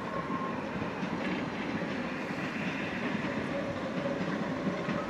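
Narrow-gauge NG/G16 Garratt steam locomotive NG.87 and its coaches running slowly into the station, with a steady rumble of wheels on rail and a faint wheel squeal.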